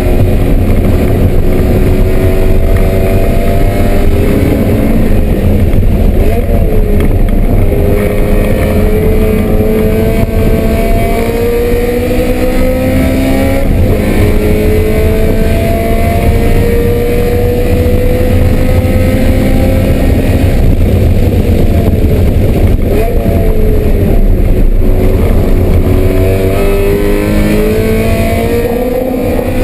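BMW M3 race car engine at full throttle, its pitch climbing through long pulls in each gear and dropping at each upshift, with a short lift about three quarters of the way through before it pulls hard again.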